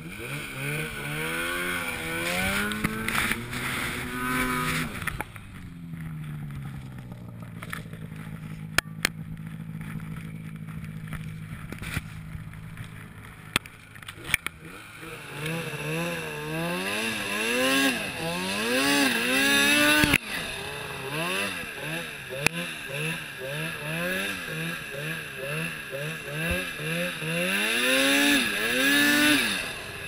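Arctic Cat Turbo snowmobile engine revving up and down over and over as the throttle is worked through powder, its pitch rising and falling with each surge. About a third of the way in it drops to a steadier, quieter run with a few sharp clicks, then picks up again into quick repeated revs, with the biggest surges near the end.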